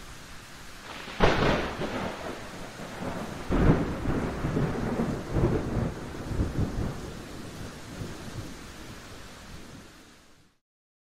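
Thunderstorm: steady rain hiss with a sharp thunderclap about a second in, then a longer rolling rumble of thunder from about three and a half seconds that slowly dies away and fades out near the end.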